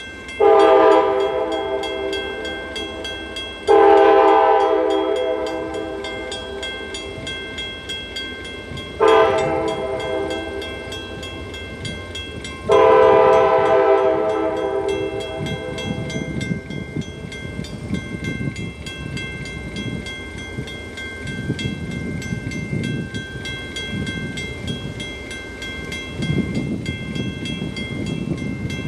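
Lead EMD SD40-2 locomotive's horn blowing the grade-crossing signal, long, long, short, long, followed by the rumble of the freight train's engines and wheels passing by.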